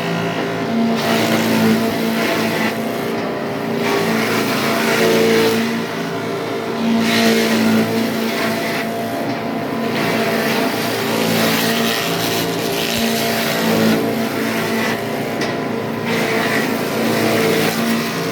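Wood-powder grinding machine running steadily on test: a constant motor hum under a rushing, grinding noise that dips and swells every few seconds.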